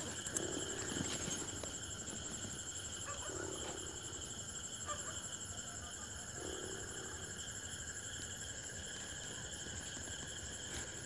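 Steady night chorus of crickets chirring, a continuous high trill, with a few faint soft rustles as a bag and phone are handled.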